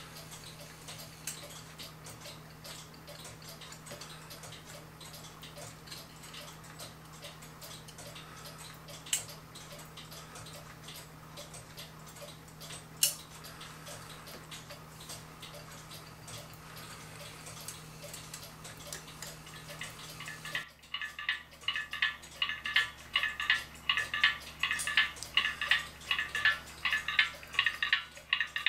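Movement of a French crystal regulator clock, freshly cleaned and oiled, ticking as it runs. About 20 seconds in the sound changes to much louder, brighter ticking of the cased clock, picked up through a small hand-held speaker.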